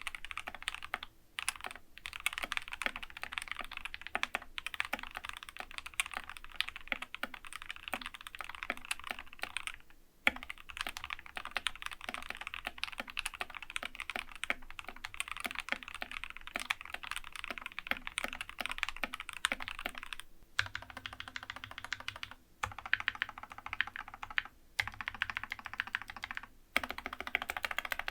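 Fast, continuous typing on a GK61 mechanical keyboard fitted with lubed and filmed Gateron Yellow optical linear switches and clipped, lubed stabilizers. The typing breaks off briefly about a second in, near the middle, and several times near the end.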